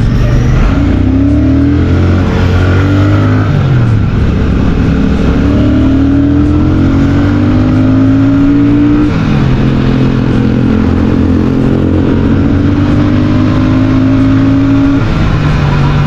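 Royal Enfield Shotgun 650's parallel-twin engine, heard from the saddle through its stock mufflers, pulling hard under acceleration. Its pitch climbs steadily, dips about four seconds in, and drops sharply about nine and fifteen seconds in as the rider shifts up.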